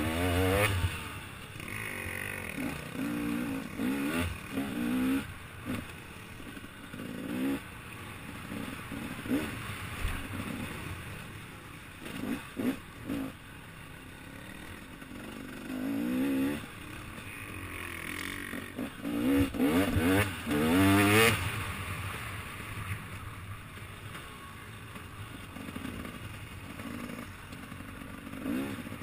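Dirt bike engine revving up and down again and again under changing throttle, its pitch climbing with each burst and dropping as it shifts or backs off. The loudest bursts of throttle come around two-thirds of the way in.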